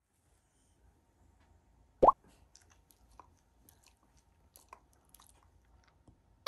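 Faint wet clicks and smacks of a Shiba Inu's mouth as hands hold its muzzle, with one short, loud, rising pop about two seconds in.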